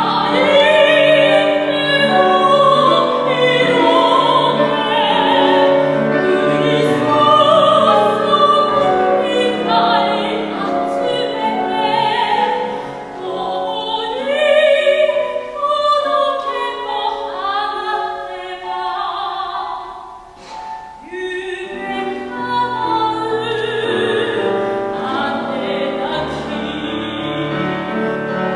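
Classical soprano singing with wide vibrato, accompanied by grand piano. The music drops briefly quieter about twenty seconds in before the voice comes back in.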